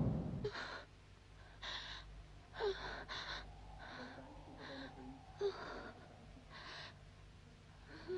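A woman's faint, shaky breathing: about eight short gasping breaths in and out, spaced unevenly, with a few small clicks, after loud music dies away in the first second.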